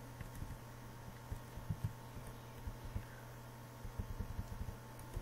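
Faint clicks and taps of a computer keyboard and mouse, a few scattered and then a quick run near the end, over a steady low electrical hum.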